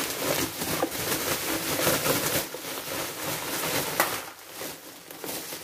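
Plastic bubble wrap rustling and crinkling as it is pulled off and handled while a parcel is unwrapped. There is a sharp snap about four seconds in, and the crinkling is quieter after it.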